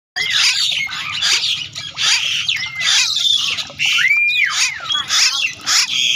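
Many birds calling at once, cutting in suddenly from silence: a dense chorus of short chirps and whistled calls that swoop up and down in pitch.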